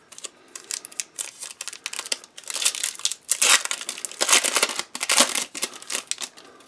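A 2016 Topps Holiday trading-card pack wrapper being torn open and crinkled by hand. The irregular crackling is busiest in the middle.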